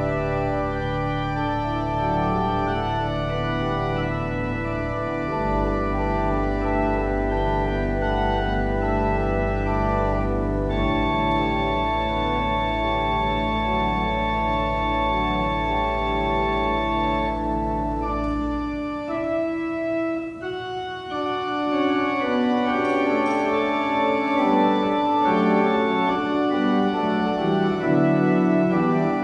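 Organ music: slow sustained chords over held deep bass notes. About two-thirds through, the bass drops out and after a brief dip the chords go on higher up.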